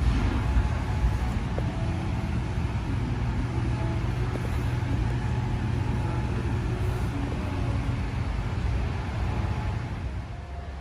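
Steady low rumble of gym room noise, with faint indistinct sounds over it; it drops a little near the end.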